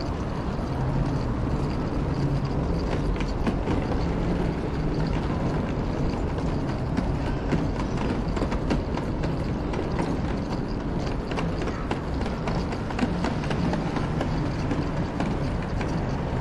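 Busy pedestrian street ambience: many footsteps clicking on the pavement over a steady murmur of city and crowd noise.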